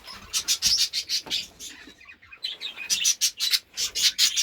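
Budgerigars chirping and chattering: a rapid run of short, high chirps with a brief pause about two seconds in.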